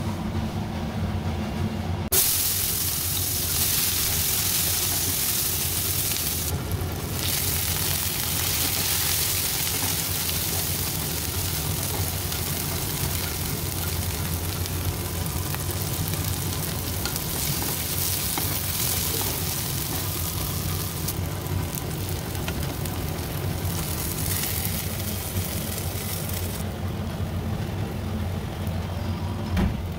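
Sliced onions and green chillies sizzling in hot oil in a frying pan while being stirred with a spatula, over a steady low hum. The sizzle starts about two seconds in and dies away near the end.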